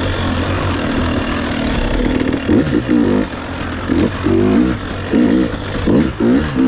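KTM 300 XC-W single-cylinder two-stroke dirt bike engine running under the rider, with the throttle worked on and off: from about two and a half seconds in its pitch rises and falls quickly five or six times.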